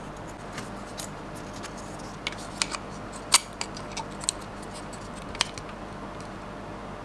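Handling of a 1/6-scale action figure and its packaging: a scattered run of about ten short, sharp clicks and snips, bunched in the middle, the loudest a little past three seconds in, over a faint steady hiss.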